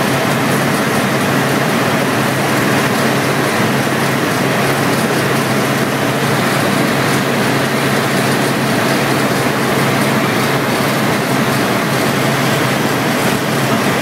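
Helicopter in steady flight, heard from inside the cabin: a loud, even engine and rotor drone with a constant low hum.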